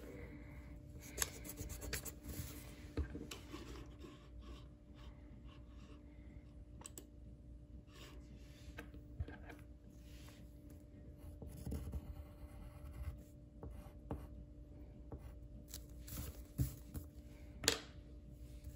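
Faint scratching of drawing strokes on paper, broken up by small taps and clicks, over a steady low hum.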